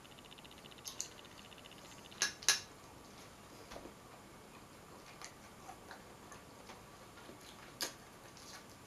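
Eating sounds from someone chewing seafood by hand: scattered sharp clicks and smacks, the loudest pair about two seconds in. A faint fast ticking runs under the first two seconds.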